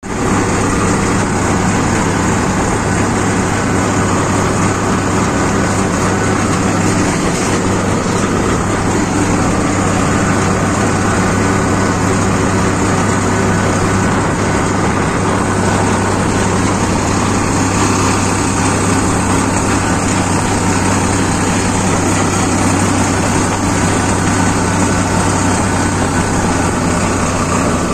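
Sonalika Sikandar tractor's diesel engine running steadily under way, heard up close from the driver's seat.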